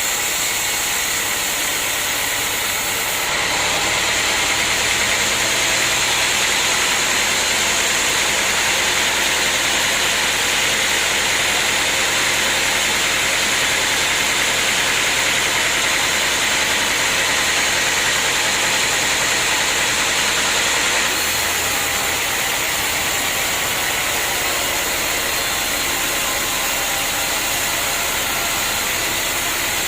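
Sawmill saw machinery running steadily. It gets louder and hissier from about three seconds in until about twenty-one seconds in, then settles back to its earlier level.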